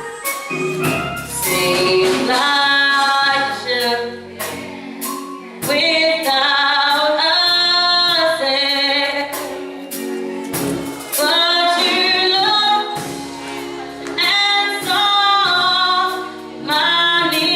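Gospel choir singing a praise song with instrumental accompaniment, in sung phrases of two to three seconds over held low bass notes.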